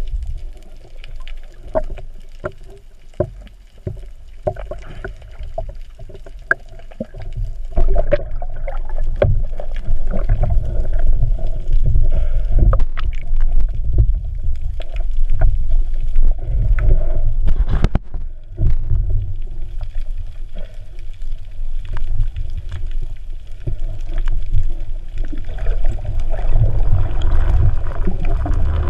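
Muffled underwater noise picked up inside a GoPro's waterproof housing: a low rumble of water moving around the camera as the diver swims, with scattered sharp clicks and taps. It grows louder about eight seconds in.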